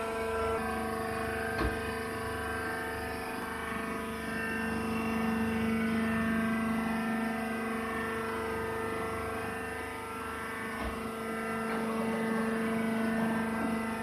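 Hydraulic peanut-shell baler's power unit running: a steady machine drone holding several fixed pitches.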